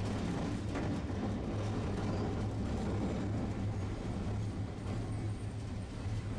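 Tosaden street tram running, heard from inside the car: a steady low hum over the rumble of wheels on track.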